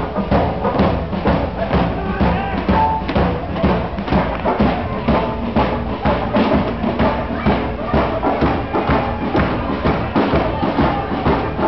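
Rockabilly band playing, with drums keeping a fast, steady beat, about three strokes a second.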